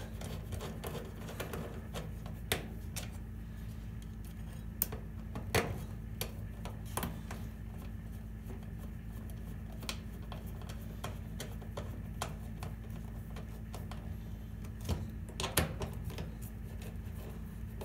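Scattered light metallic clicks and taps as a screwdriver fastens a range cord's black wire terminal to the screw on an electric range's terminal block, over a steady low hum.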